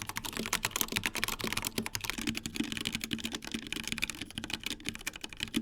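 Fast typing on a Corsair K70 Pro Mini Wireless mechanical keyboard with Cherry MX Red linear switches: a dense, continuous clatter of keystrokes.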